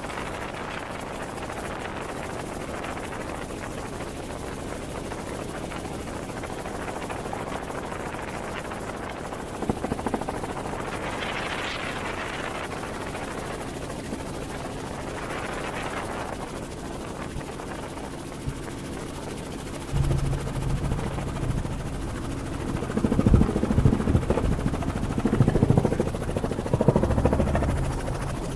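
Helicopter in flight, heard from inside the cabin: a steady rotor and engine drone. About two-thirds of the way through it turns louder, with uneven low rumbling bursts that ease off near the end.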